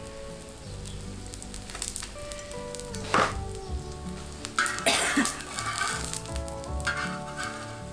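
Kimchi pancake (kimchijeon) frying in oil in a wide iron pan over a wood fire, sizzling steadily. A metal spatula scrapes across the pan a few times, loudest just after the middle, as it is worked under the pancake to loosen it.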